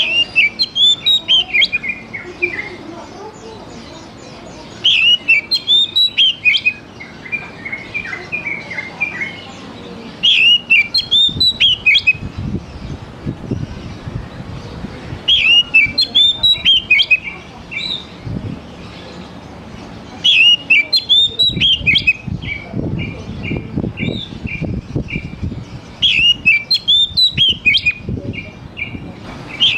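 Oriental magpie-robin singing. It gives bursts of rapid, sweeping whistled notes about two seconds long, roughly every five seconds, and some phrases end in a quick run of short repeated notes.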